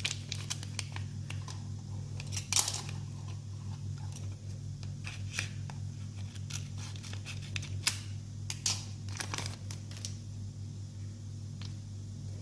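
Irregular crinkling, rustling and light clicks as a nylon-braided micro USB cable and its plastic ziplock packaging are handled, with one sharper crackle about two and a half seconds in and another cluster near the end, over a steady low hum.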